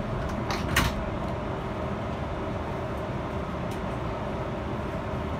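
New York City subway train running, a steady rumble heard from inside the car, with two short clicks under a second in.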